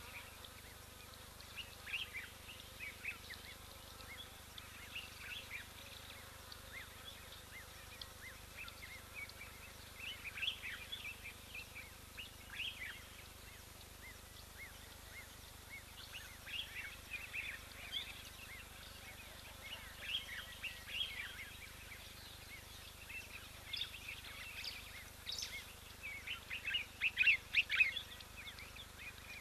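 Small birds chirping in short scattered bursts over a steady faint hiss of the open bush. The chirps come thickest and loudest near the end.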